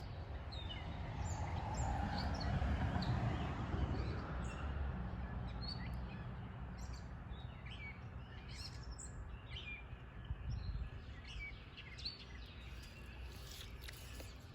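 Wild songbirds chirping and calling, many short high notes scattered throughout, over a low rumble that is strongest in the first few seconds.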